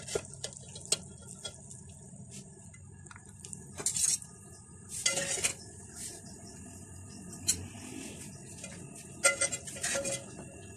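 A slotted metal spoon scraping and clinking against a metal cooking pot as stir-fried noodles are lifted out and served. It comes as a series of short scrapes and clinks, loudest about four, five and nine seconds in.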